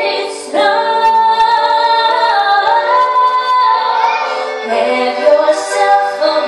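Teenage girl singing a slow song through a handheld microphone, holding long notes, with a short breath pause about half a second in.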